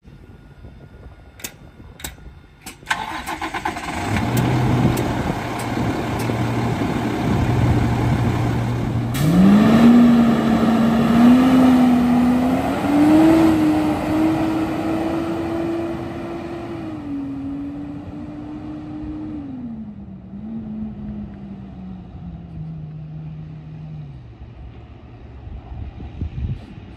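Cummins ISL inline-six diesel of a 2013 Autocar Xpeditor garbage truck starting about three seconds in after a few clicks, then idling steadily. From about nine seconds it pulls away, its pitch climbing in steps as the Allison automatic shifts up, then falling and fading as the truck drives off.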